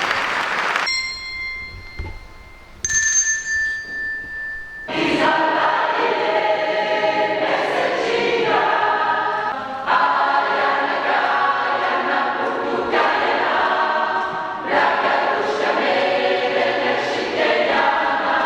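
Applause dies away about a second in, then two clear, steady ringing notes sound one after the other, like a starting pitch being given. About five seconds in, a choir begins singing, phrase after phrase with short breaks.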